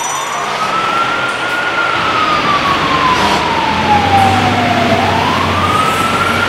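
Scania fire engine's siren sounding a slow wail: it rises, falls slowly over about four seconds, then rises again. The truck's diesel engine runs underneath from about halfway in as the appliance pulls away.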